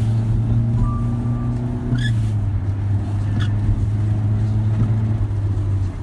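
Car running, heard from inside the cabin: a steady low engine and road hum. A faint short tone sounds about a second in, and a few faint ticks come around two seconds in.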